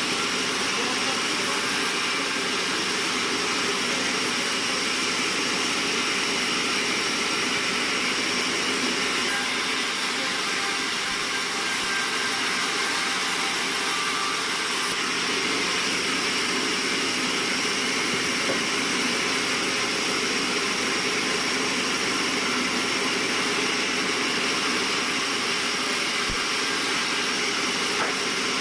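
Band sawmill machinery running steadily: constant machine noise with several fixed tones over a hiss, unchanging in level.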